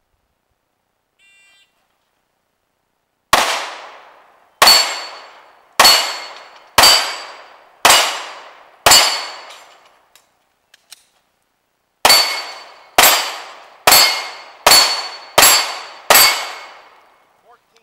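A faint shot-timer beep, then twelve pistol shots fired at a steel plate rack: six about a second apart, a pause of about three seconds, then six more. Each shot is followed by a ringing decay as the steel plates are hit.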